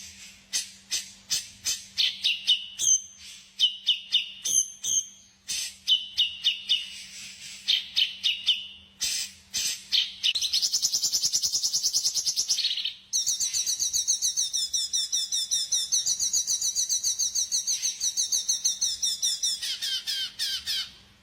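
Songbird calls: rapid sharp chip notes and short high whistled phrases, then from about halfway a long, fast, wavering trill lasting several seconds. A faint steady hum runs underneath.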